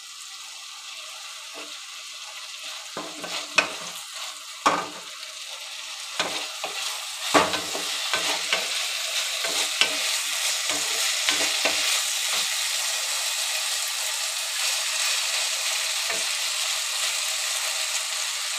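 Potato and brinjal sticks frying in mustard oil in a kadhai, sizzling steadily, while a wooden spatula stirs them with scattered knocks and scrapes against the pan. The sizzle grows louder over the first half, and the knocks thin out after about twelve seconds.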